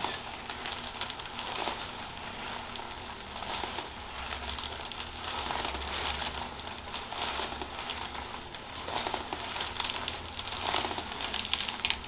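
Hands rubbing and kneading at the back of a person's neck and scalp: a steady crinkly rustling with many fine crackles, fingers moving over hair and skin.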